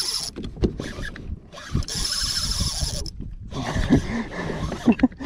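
Conventional fishing reel being cranked in to retrieve a hooked fish, its gears whirring in two spells, a short one at the start and a longer one about two seconds in, among knocks and rubs of handling against the kayak.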